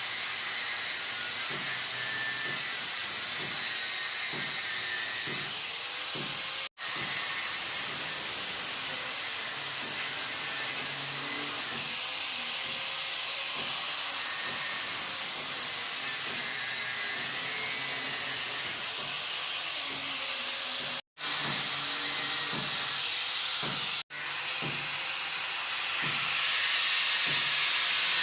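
Angle grinder's abrasive disc cutting through an iron rod: a loud, steady, hissing grind. It breaks off sharply for an instant three times.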